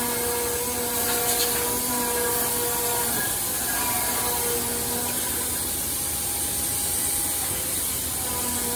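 CNC band saw running and cutting through a stack of wood blocks: a steady hiss, with faint hums that come and go.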